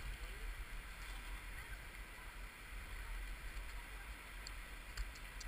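Faint steady rushing noise with a low rumble, and a few light clicks near the end.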